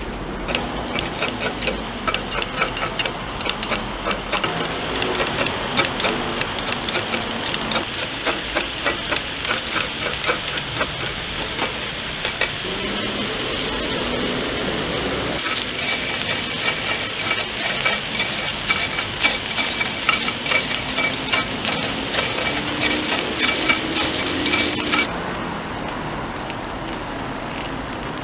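Oil sizzling and crackling with many small pops in a hot cast-iron takoyaki pan, around chopped vegetable pieces frying in its wells. The sizzle grows louder and busier about halfway through, then drops back suddenly near the end.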